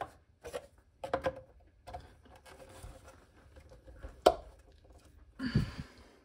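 White plastic waste pipe being handled against the sink's plastic waste fittings: light clicks and knocks of plastic on plastic, a sharp click about four seconds in, and a louder rubbing knock near the end.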